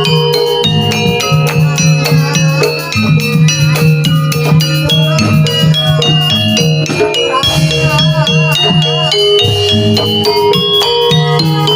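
Jaranan (jaran kepang) music: a gamelan-style ensemble of metal percussion and drums playing a fast, dense pattern over steady low tones. A wavering melody line comes in for a couple of seconds past the middle.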